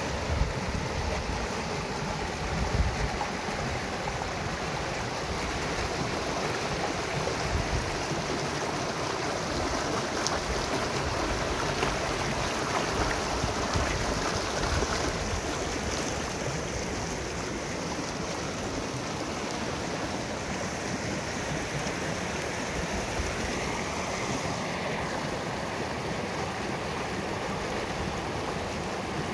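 Flood-swollen muddy stream rushing and churning over rocks and through grass: a steady, unbroken rush of water. A couple of brief low bumps come in the first few seconds.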